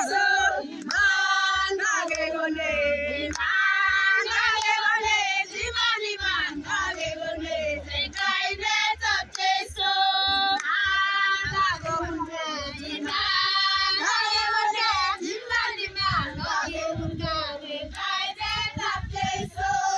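A group of women singing together in high voices, without instruments.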